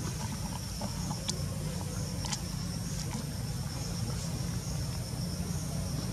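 Outdoor ambience: insects calling in a steady high-pitched drone over a steady low rumble, with a couple of brief sharp clicks about one and two seconds in.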